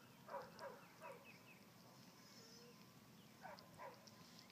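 Near silence: faint outdoor ambience, with a few faint short calls in the first second and again about three and a half seconds in.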